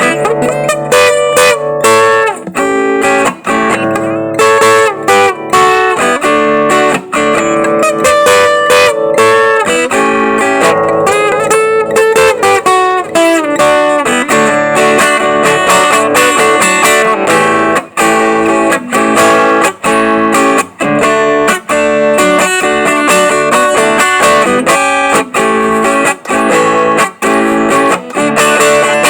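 Acoustic guitar played solo, a continuous stream of quick plucked notes and chords, with a few sliding notes about halfway through.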